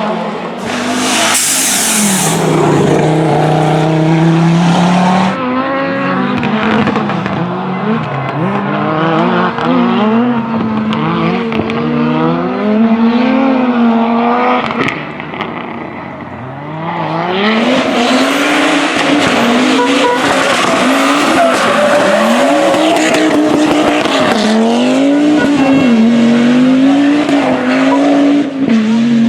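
Audi Quattro rally cars' turbocharged five-cylinder engines at full throttle, the pitch repeatedly climbing as they rev out and dropping at each gear change. A strong hiss comes in the first few seconds, and the engine sound dips about halfway through before coming back loud.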